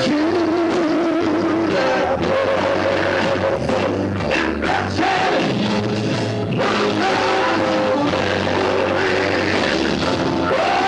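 Live gospel song played loud: a lead singer with electric guitars backing him and a steady low bass line underneath.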